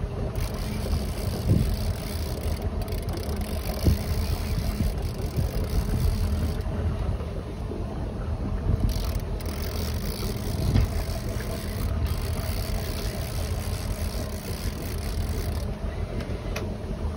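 Tiara 2700 Open fishing boat's engine running steadily, a low rumble under wind and water hiss, with a few short knocks.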